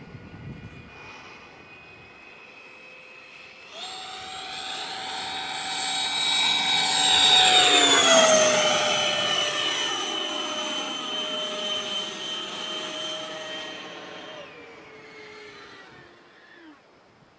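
Electric ducted fan of a HET L39 model jet (HET 9305 fan unit on a Typhoon 700-68 motor) whining through a fast low pass. The whine comes in loud about four seconds in and peaks about eight seconds in, where its pitch drops as the jet goes by. It then holds a lower pitch and fades away near the end.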